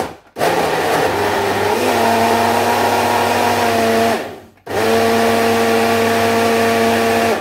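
Personal blender motor blending frozen mango pieces with yogurt and milk, in two runs of about three and a half and three seconds with a short pause between. The motor whine steps up in pitch about two seconds in as the mixture smooths out, then stays steady and high through the second run.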